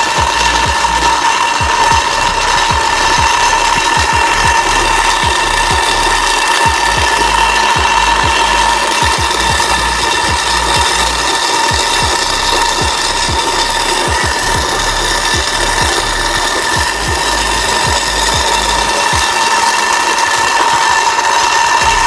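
Small battery-powered DC motor of a cardboard toy road roller running with a steady high whine, with irregular low clattering from its gears and cardboard body as it drives along on its tin-can roller.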